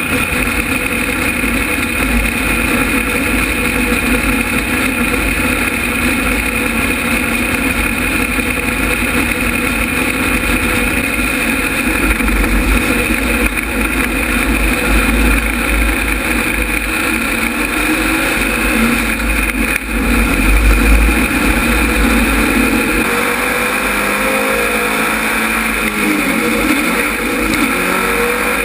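Dirt-track modified race car's engine heard from a camera mounted on the car, running loudly with a heavy low rumble while it rolls out of the pits. In the last few seconds the engine note rises as the car picks up speed on the track.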